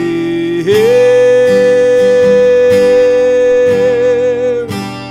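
Acoustic guitar strummed steadily under a singer holding one long note, which steps up in pitch about a second in and wavers at the end.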